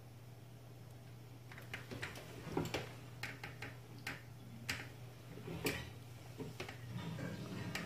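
Irregular light clicks and taps, a dozen or so, starting about a second and a half in, over a steady low hum.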